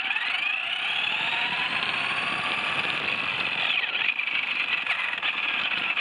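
Radio-controlled buggy's motor and drivetrain whining, rising in pitch as it speeds up, dipping briefly about four seconds in, then climbing again. Gravel crunches under the tyres.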